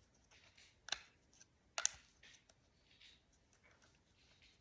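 Small sharp clicks and faint scraping as a screw is tightened through a projector's ground stake and supporting frame while the nut is held by hand, with two louder clicks about one and two seconds in.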